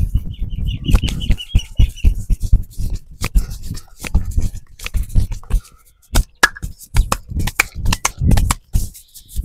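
Hands slapping, patting and rubbing a man's head and hair in a head massage: a quick, irregular run of sharp claps and dull thuds, several a second.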